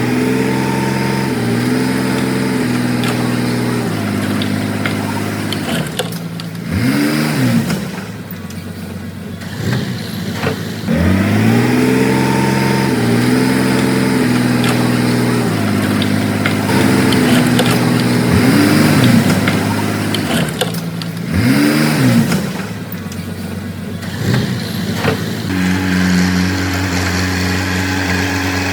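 Komatsu D31P bulldozer's diesel engine running, its pitch rising and falling several times as it revs up and settles back.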